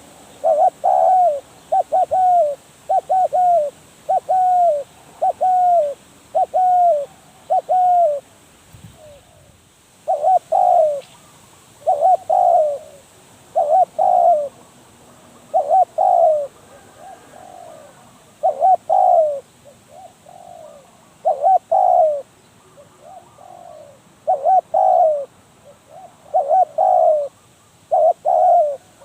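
Spotted dove cooing, a steady run of short coos about one a second, with a brief pause about eight seconds in. In the second half fainter coos fall between the loud ones.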